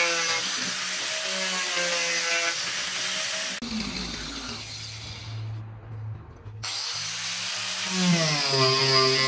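Handheld angle grinder running against a block of wood, its whine wavering as the disc bites. About a third of the way through it cuts abruptly to a quieter stretch with a low hum, then the grinder returns and cuts down into the wood, its pitch sagging under the load near the end.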